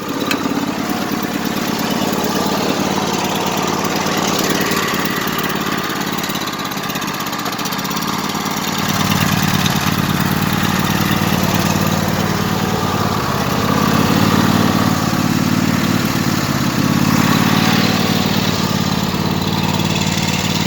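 Craftsman LT1000 lawn tractor engine running steadily after a hard start. It gets louder about nine seconds in and swells a couple more times after that.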